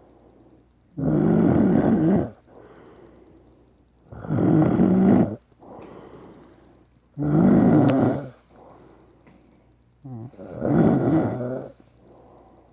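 A man snoring loudly: four long snores, each lasting over a second, about every three seconds, with quiet breathing between them.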